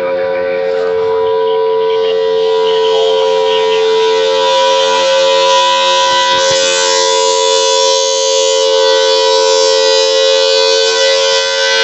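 Tornado warning siren sounding a steady two-note tone as a test during a tornado drill.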